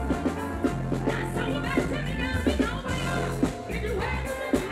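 Live band music with a bass line and drums, and a woman singing into a microphone over it.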